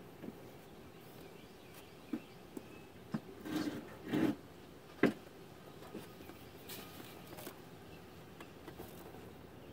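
A few light, sharp clicks and knocks, spaced irregularly with quiet between them, most of them between about two and five seconds in, then only faint ticks: handling noise from someone working in an engine bay and reaching in to grip the oil filter by hand.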